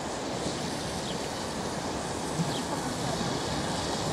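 Class 466 two-car electric multiple unit approaching on the track: a steady rushing noise of wheels on rails that grows slightly louder.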